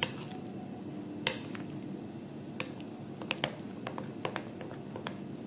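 A spoon stirring thick palm-fruit batter in a bowl, with scattered light clicks as the spoon knocks against the bowl.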